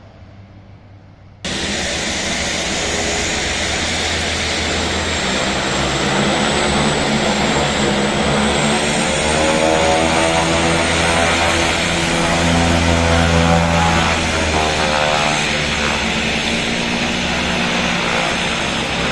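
De Havilland Canada DHC-6 Twin Otter's twin PT6A turboprops running as the aircraft taxis and turns, a loud propeller drone with a thin high turbine whine that rises and falls slightly. The sound starts abruptly about a second and a half in.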